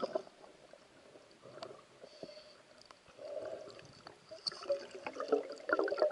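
Underwater sound through a submerged camera: faint water movement and gurgling with scattered small clicks, growing busier in the last couple of seconds.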